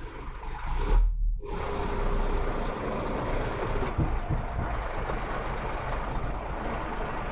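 Lorry engine running steadily with a low rumble, heard from inside the cab. There is a brief drop-out about a second in.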